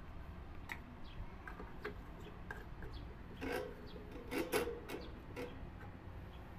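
Plastic fan parts handled and fitted together by hand: scattered small clicks and rubbing, with two louder bursts of scraping and clattering about three and a half and four and a half seconds in.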